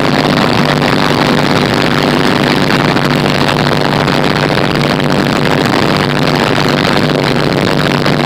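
Light aircraft engine running steadily in flight during a low pass, heard from inside the cockpit, with a steady hum over a dense rush of noise.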